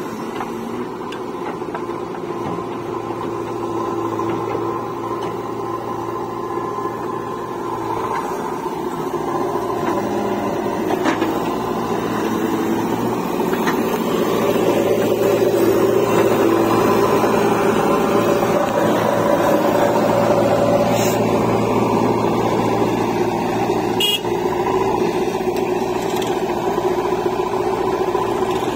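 Diesel engine of a JCB backhoe loader running steadily under load as the backhoe arm digs soil and swings it over to a tractor trolley, with two short sharp clicks in the second half.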